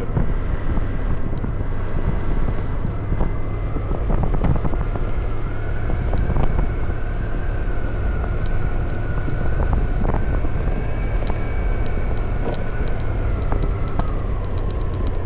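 Motorbike engine running steadily while riding, with wind buffeting the microphone. An engine whine rises a little a few seconds in and eases off near the end.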